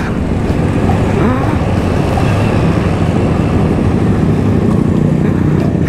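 Honda CBR250RR motorcycle engine running steadily while riding in traffic.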